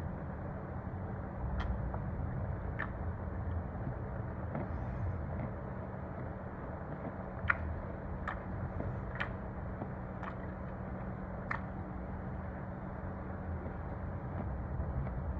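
Steady low background rumble with a faint hum, broken by about eight short, sharp clicks at irregular intervals; the loudest click comes about seven and a half seconds in.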